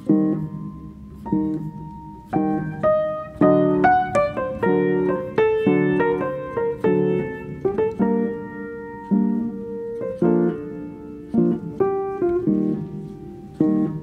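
Background piano music: a slow melody of struck, fading notes and chords.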